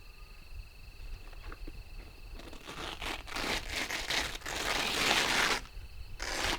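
Crinkling, rustling handling noise that builds up, is loudest from about three to five and a half seconds in, and then stops suddenly. A faint steady high tone runs under the first half.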